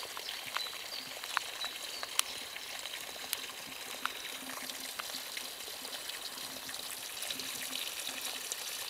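Spring water trickling and running steadily, with a few sharp clicks scattered through it.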